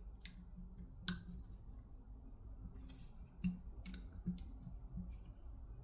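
Light metal clicks as a 5 mm hex key is fitted into and tried on the vise's fixed-jaw screws, which arrived tight and do not turn. About seven faint clicks, irregularly spaced, the sharpest just after a second in.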